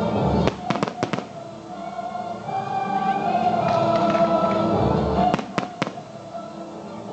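Fireworks shells bursting: a quick cluster of sharp bangs about a second in and three more around five and a half seconds, over music with long held notes.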